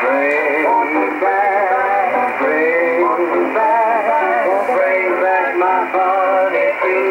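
A song with singing, received from a pirate shortwave station on 6940 kHz in upper sideband and played through an Icom communications receiver. The sound is narrow and thin, with nothing above about 2.5 kHz.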